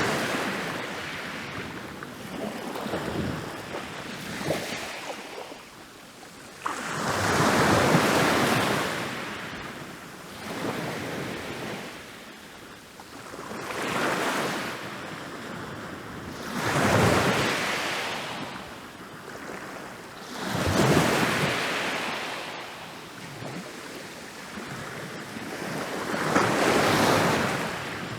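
Ocean waves rolling in and breaking on a beach, each wash of surf swelling and falling away every three to four seconds, the loudest break about eight seconds in.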